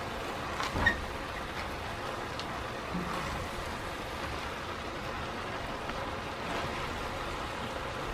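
Collard greens hissing steadily as they cook down in a hot enameled pot, tossed with silicone tongs, with one brief knock a little under a second in.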